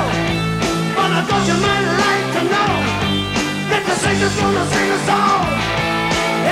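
Live rock band playing: electric guitars, bass and drums with a sung lead vocal.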